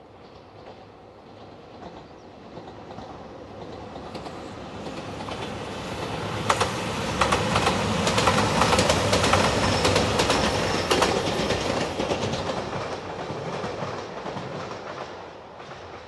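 A three-car JR Shikoku 2700 series diesel express train passing: the engine and wheel noise builds to a peak about halfway through, with a run of clicks as the wheels cross the rail joints, then fades.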